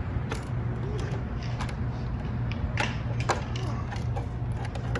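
Hands handling the plastic body and parts of an RC truck: a few scattered sharp clicks and knocks over a steady low hum.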